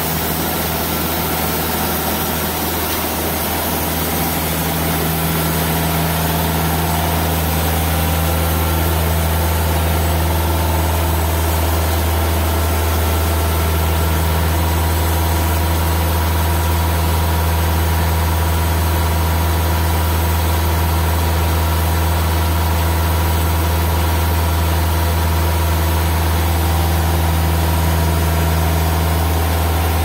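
TimberKing 2000 bandsaw mill running steadily, its engine carrying the saw head down the log on a cut through eastern red cedar. The sound builds a little over the first few seconds, then holds even.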